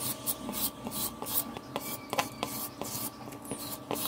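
A carrot being shredded into thin strands with a handheld julienne grater: a quick, uneven run of scraping strokes, about two or three a second.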